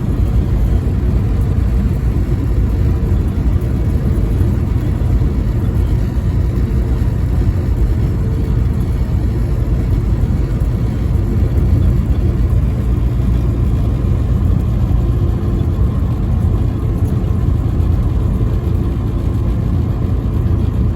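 Steady low rumble of engine and road noise from a truck cruising at highway speed on the interstate, with a faint steady hum above it and no horn blast.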